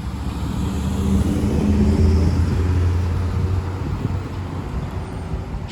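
A road vehicle passes close by. Its low engine drone grows louder to a peak about two seconds in, then fades, over a steady hiss of traffic noise.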